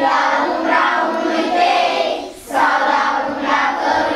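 A class of young schoolchildren singing a song together as a group, with a short break a little past halfway.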